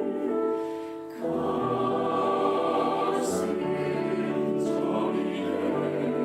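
Mixed choir of sopranos, altos, tenors and basses singing sustained chords. The sound thins out briefly about a second in, then the voices come back fuller with low bass notes underneath, and sung consonants hiss twice near the middle.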